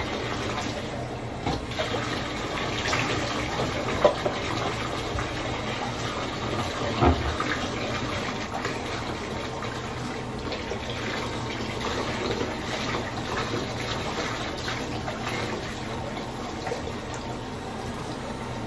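Bathtub faucet running, a steady stream of water pouring into the tub, with two brief louder knocks about four and seven seconds in.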